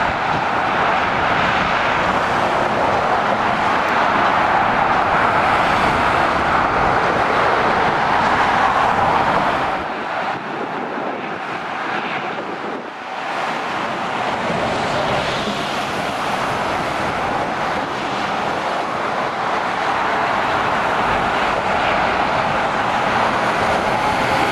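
Motorway traffic: lorries and cars passing with a steady roar of tyres and engines, briefly quieter about halfway through.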